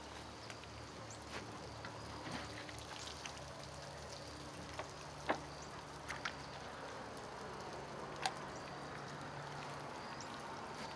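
Water trickling and dripping out of bullet holes in water-filled plastic milk jugs, with a few sharper single drips.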